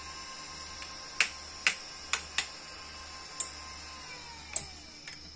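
Six sharp, irregular clicks of multimeter test probes knocking against the terminals and metal of an open class D power amplifier, over a steady high electronic whine that slides down in pitch near the end.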